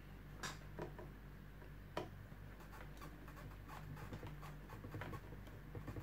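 Screwdriver backing out the screws on the back panel of a homemade hand-sanitiser dispenser: scattered light clicks and ticks, with sharper clicks about half a second and two seconds in.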